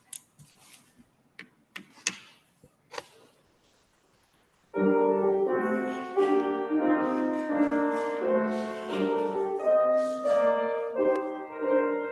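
A few faint clicks and knocks over near silence, then about five seconds in instrumental music starts abruptly: a keyboard instrument playing chords.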